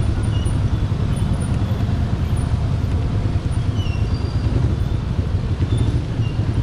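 Motorcycle engine running at low speed in slow, crowded traffic, a steady low drone. A few faint, short high-pitched tones sound over it.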